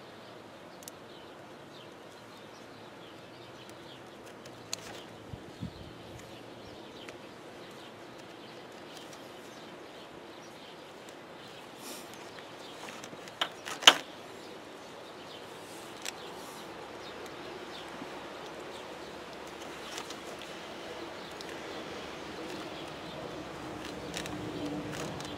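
Small scratching clicks of a metal pick worked into a green plastic wiring plug, over faint outdoor background. A few light clicks come about five seconds in, and a sharp pair of clicks, the loudest sounds, comes about fourteen seconds in.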